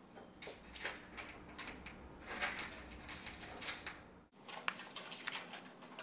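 Light handling noises of small hard objects worked in the hands: irregular clicks, taps and short scrapes. The sound breaks off abruptly about four seconds in, then the clicking and handling resume.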